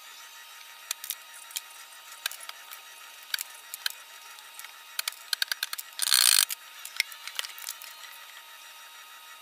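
Marine-plywood subwoofer box parts being handled and fitted during assembly: scattered light clicks and knocks, with one short, loud burst of noise about six seconds in.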